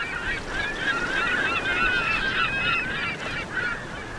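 A flock of birds calling: many short honking calls overlap each other, thinning out near the end.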